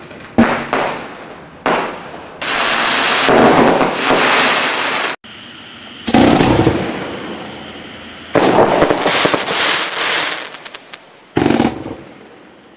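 Consumer firework cakes going off. There are a few sharp bangs, then a loud steady hissing burst that cuts off abruptly about five seconds in. After that come a loud shot with a fading tail, a dense spell of rapid pops and hissing, and one more bang near the end.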